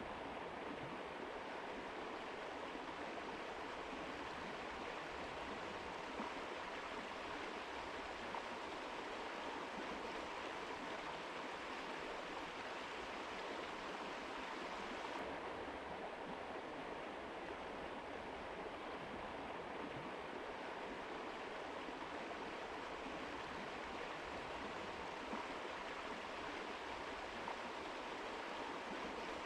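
Mountain river flowing: a steady, even rush of running water, its upper hiss thinning slightly about halfway through.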